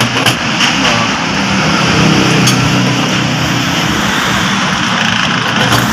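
An engine running steadily, a constant low drone under a loud, even mechanical noise, with a few faint clicks.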